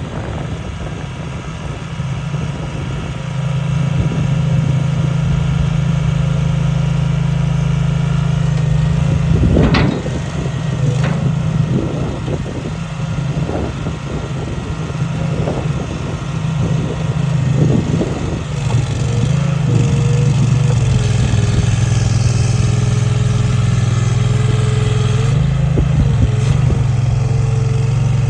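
Gravely Skidsteer 200 stand-up compact skid loader's engine running steadily, with a handful of sharp knocks in the middle. From about two-thirds of the way in, a steady whine rides over the engine.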